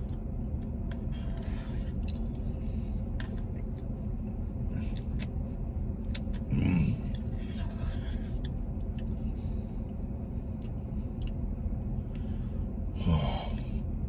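Eating sounds: a red plastic spoon scraping and clicking in a Dairy Queen Blizzard cup, with mouth noises and a brief "mm" about seven seconds in and again near the end, over a steady low hum in a car cabin.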